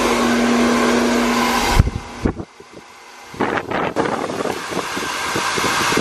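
Chaoba 2800 2000-watt hand-held hair dryer blowing, its motor humming steadily under the rush of air. It cuts off about two seconds in and starts again about a second and a half later, the air now gustier and fluttering.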